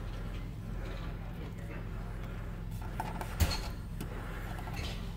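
Steady low electrical hum from a vintage Philips console stereo with the record no longer playing, broken by a few light clicks and one sharper knock about three and a half seconds in as the turntable is handled.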